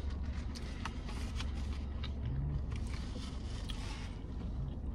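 Chewing and small mouth clicks from eating a chicken sandwich, over a steady low hum inside a car.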